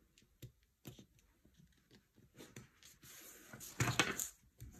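A sheet of printed paper being folded by hand for origami, a corner brought in to the centre line and the crease pressed flat: light scattered ticks and rustles, then louder rustling and rubbing of the paper from about three seconds in, loudest near four seconds.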